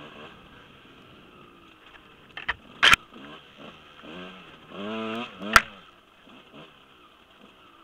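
Husqvarna 125 dirt bike engine revving up and down on a trail ride, heard from a helmet camera, with a sharper rev near the end. Sharp knocks about three seconds in and again about five and a half seconds in are the loudest sounds.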